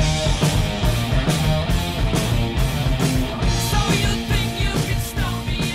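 Outro rock music with guitar over a steady drum beat.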